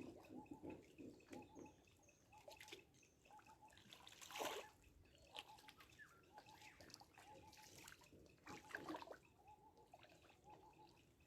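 Faint water trickling and dripping, with a few small splashes, the loudest about four seconds in.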